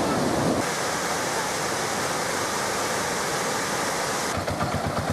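Rushing floodwater: a steady, even rush of water noise. Near the end a low, regular engine throb comes in.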